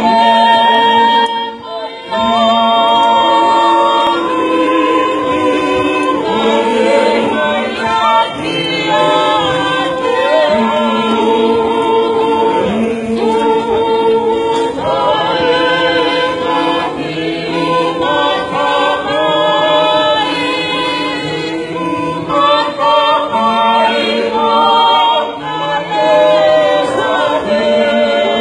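Tongan church choir singing a cappella, many voices holding long notes in several parts.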